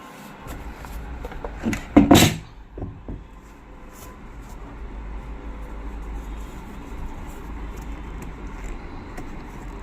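A loud knock, like a metal part or tool set down hard, about two seconds in, then small clicks and taps of parts being handled over a steady low hum.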